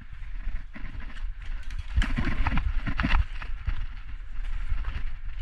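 Running footsteps on the ground: an irregular patter of thumps, busiest about two to three seconds in, over a low rumble.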